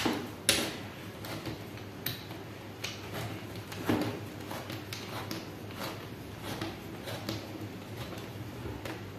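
Screwdriver tightening a worm-drive hose clamp on the rubber coupler of an aluminium cold air intake pipe: soft, irregular clicks and scrapes of metal, with a few louder taps.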